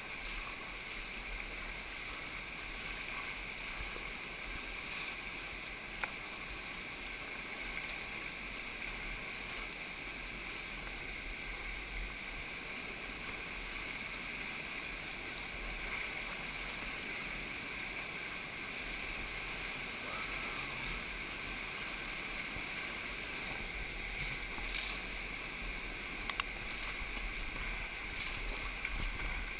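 Whitewater rapids rushing steadily around a kayak running a class 3–4 rapid, heard close up from the boat, with a few brief sharp clicks, one about six seconds in and two near the end.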